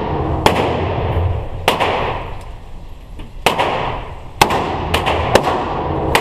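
Gunshots echoing in an indoor shooting range: about seven sharp cracks at irregular gaps, some half a second apart and some nearly two seconds, each followed by a long reverberant tail.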